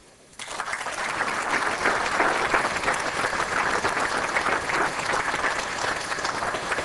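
Audience applauding: many hands clapping together, starting sharply about half a second in and holding steady, easing off slightly near the end.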